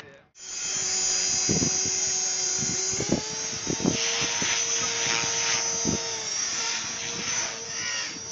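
Radio-controlled model helicopter in flight: a steady motor and rotor whine, its pitch stepping up about three seconds in, with a few short thuds.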